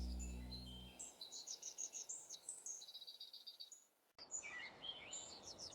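Small birds chirping and singing in quick, high-pitched trills and note series, with the tail of soft music fading out in the first second and a brief cut to silence about four seconds in.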